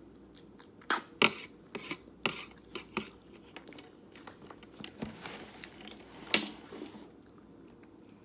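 A person chewing a big mouthful of ramen noodles in jjajangmyeon sauce close to the microphone: irregular wet mouth clicks and smacks, the loudest about a second in and again near six seconds in.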